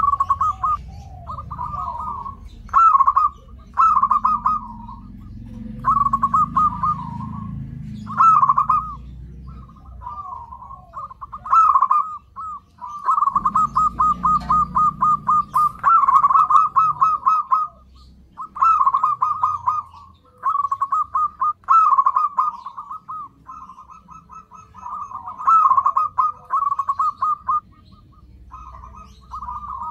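Zebra dove (perkutut) cooing: one phrase after another of quick, rolling, trilled coos on a steady pitch, with short pauses between them. The longest run is about halfway through.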